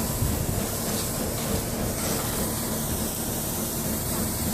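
Steaks sizzling on a gas grill: a steady hiss.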